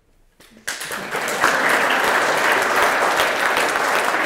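An audience and a panel applauding, many hands clapping at once. It starts suddenly after a brief hush, about half a second in, and holds steady.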